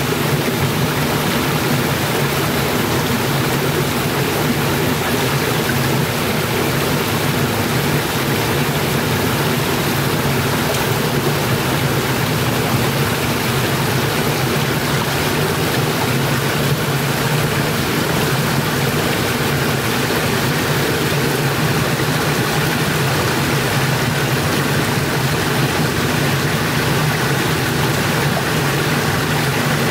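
Rocky forest stream rushing steadily over a small cascade.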